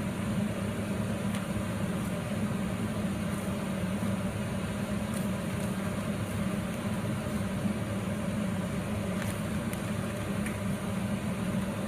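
Steady low machine hum with a hiss above it, and a few faint light clicks.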